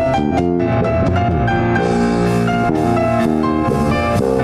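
Live worship band playing an instrumental passage without singing, led by keyboard with held chords, with light percussion underneath.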